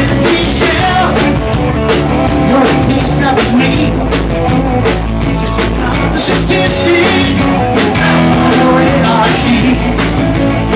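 Live rock band playing a song, with drum kit hits driving it and singing over the instruments.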